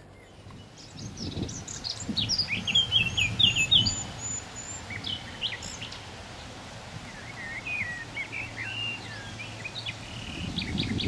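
Small birds chirping and singing in quick, high calls: a burst of them a couple of seconds in and another in the second half, over a low steady rushing background.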